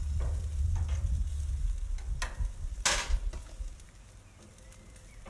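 Asparagus and potatoes sizzling on a gas grill's hot grates as they are moved around, with wind rumbling on the microphone through the first half. A short, sharp hiss about three seconds in.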